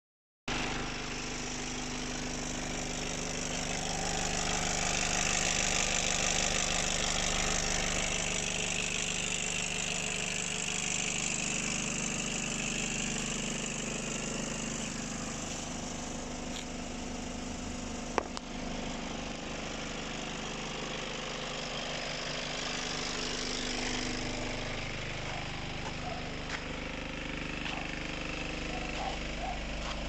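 Renault Master van's diesel engine idling steadily, heard with the bonnet open. There is a single sharp click about eighteen seconds in.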